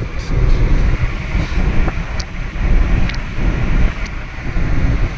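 A car driving at speed, heard from inside the cabin: a steady low road rumble with uneven wind buffeting on the microphone.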